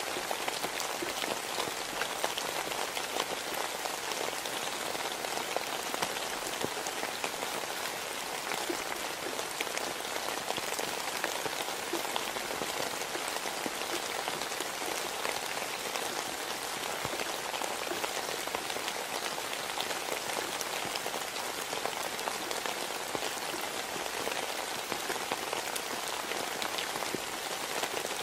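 Steady rain, a dense patter of many small drops falling without letup.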